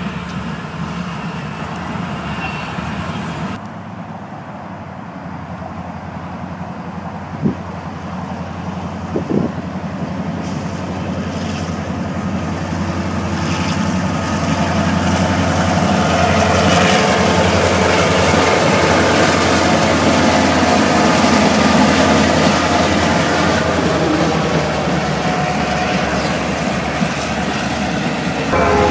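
Freight train's diesel locomotives running past. A short stretch of a CSX GE road unit is followed by a pair of EMD four-axle units, a GP60 and a GP38-3, whose steady engine drone grows louder as they approach and then holds as they pass. Two sharp knocks sound a few seconds after the cut.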